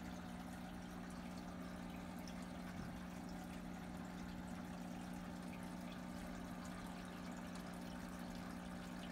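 Aquarium filter running: a steady low hum with water trickling.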